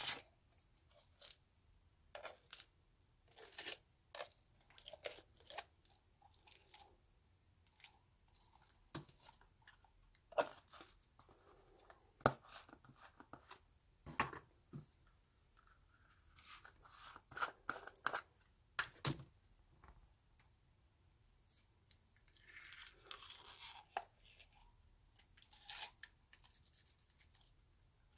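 Foam-bead slime crackling as it is scooped and pushed out of a plastic jar with a plastic spoon, the tiny foam balls popping in irregular small clicks. Plastic jars and spoon knock and scrape now and then, with a longer scraping rustle about three quarters of the way through.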